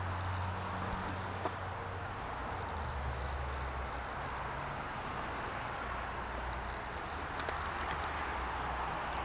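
Steady outdoor background noise under a low, engine-like hum that shifts in pitch about three seconds in, with a few short, high bird chirps in the second half.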